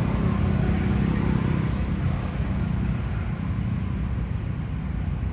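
Steady low rumble of outdoor background noise, a little stronger in the first couple of seconds and easing slightly after, with a faint, steady high-pitched tone above it.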